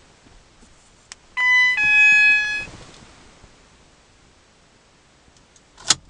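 Ford Fiesta's dashboard chime sounding one falling two-note bong, the car's confirmation signal while the remote key is being paired. A light click comes just before it, and a sharper click near the end.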